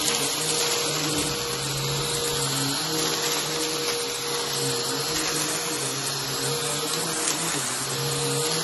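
Upright bagless vacuum cleaner running steadily as it is pushed over thick shag rugs, its hum with a slight back-and-forth shift in pitch every second or so.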